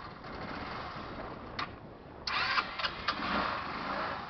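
Wildfire WFH150-D 150cc scooter engine running, with a louder, noisier stretch with a few sharp clicks starting about two seconds in.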